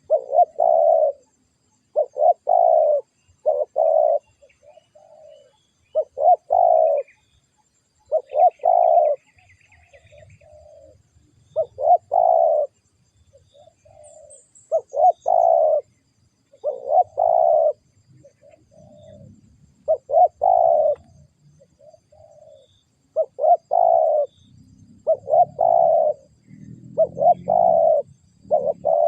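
Spotted dove cooing over and over, a loud phrase of two or three notes every second and a half to two seconds, with fainter, shorter coos from a second dove in the gaps.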